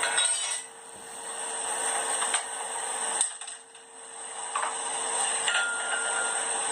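A few separate metal clinks and knocks of blacksmithing tools being handled, one of them ringing briefly near the end, over a steady hiss.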